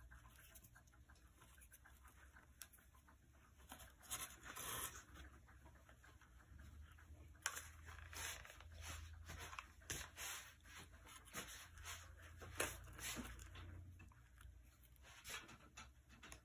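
Near silence broken by faint rustling and scattered light taps as hands press synthetic braided hair into place, with a faint low hum underneath.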